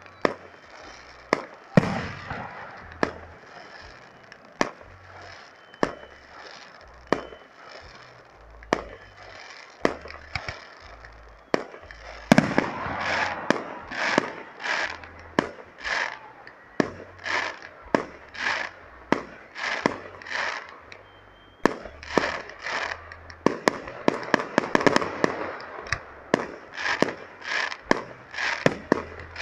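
Aerial fireworks display: a steady run of shell bursts, each a sharp bang, about one a second. From about halfway through, crackling bursts fill the gaps, and they come thicker near the end.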